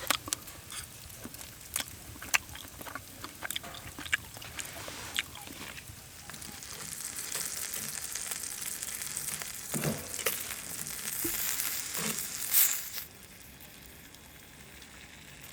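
Food frying in fat on a fire-heated flat stone: scattered pops and crackles at first, then a louder, steady sizzle from about six seconds in that stops abruptly near the end.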